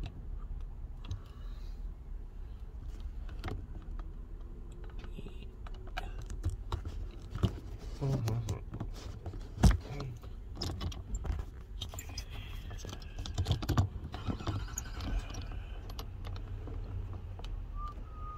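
Phone handling noise in a car cabin: scattered clicks and knocks, one sharp knock about ten seconds in, over a steady low hum.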